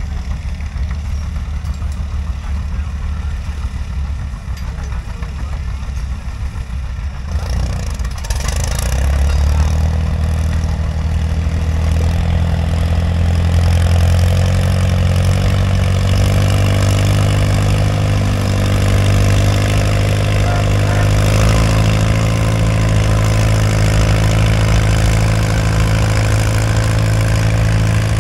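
Farmall tractor engine running at a low, steady speed, then revving up about eight seconds in and holding high revs under load as it pulls the weight-transfer sled.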